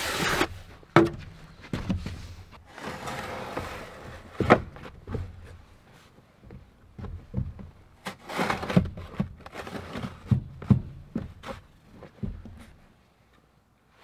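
Scoop snow shovel scraping and pushing through deep snow, several scrapes of a second or so each, broken by sharp knocks of the shovel blade; it goes quieter near the end.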